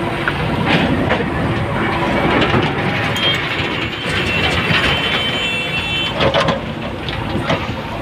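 JCB 3DX backhoe loader's diesel engine working under load as the backhoe bucket digs and pries at a tree stump. It is overlaid with clanks and knocks of the steel bucket, several sharp ones near the end, and a high squeal about halfway through.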